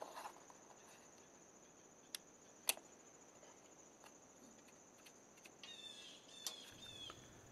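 Two sharp clicks about half a second apart, about two seconds in, from a new gas cap's ratchet as it is screwed tight into the filler neck: the clicks that show the cap is fully seated. Faint chirping and another small click follow near the end.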